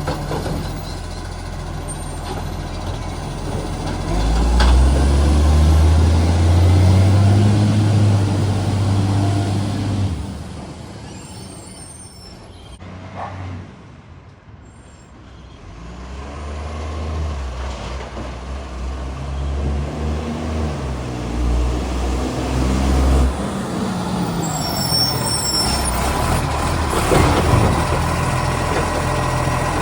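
Green-waste garbage truck's diesel engine with a leaking exhaust, revving up hard about four seconds in, falling away near the middle, then building up again and running on strongly.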